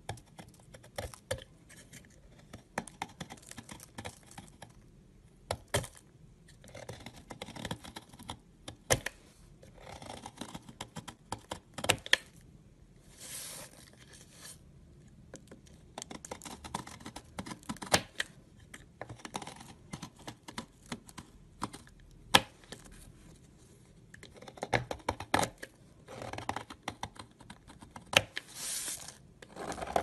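A snap-off utility knife blade shaving and scraping a crumbly bar of soap: crunchy scraping strokes in short irregular runs, with sharp clicks and crackles as pieces break away.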